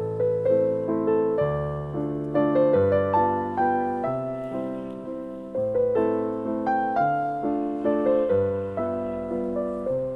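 Background piano music: a gentle melody of repeated notes over soft chords.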